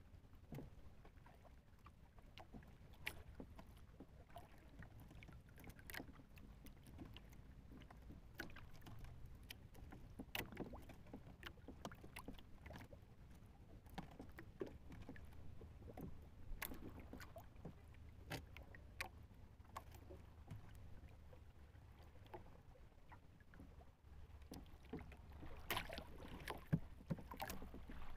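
Faint water lapping and slapping against the hull of a small outrigger canoe drifting on calm sea, with scattered small clicks and knocks throughout, a little louder and busier near the end.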